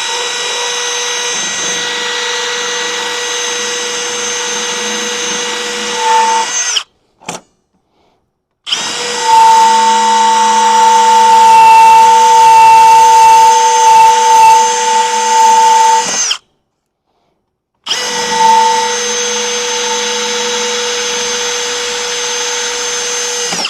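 Power drill running at steady speed in three long runs of several seconds each, stopping briefly between them; the middle run is the loudest.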